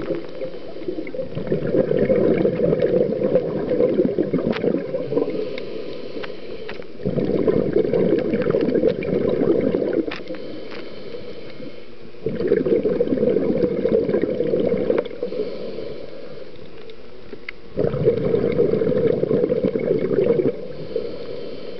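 A scuba diver breathing through a regulator underwater: four long rushes of exhaled bubbles, roughly every five seconds, with quieter inhalations between them, and faint scattered clicks throughout.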